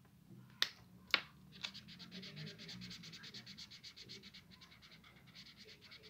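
Felt-tip marker colouring on grid paper: a rapid, rhythmic back-and-forth scratching of the tip on the paper. It comes after two sharp clicks about half a second apart near the start.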